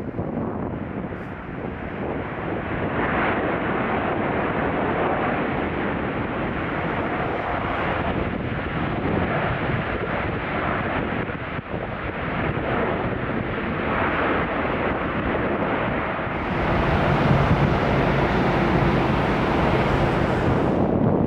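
Boeing 747 jet engines running, a steady rushing noise mixed with wind buffeting the microphone. About three quarters of the way through, the sound changes abruptly: it gets louder, with a steady low hum.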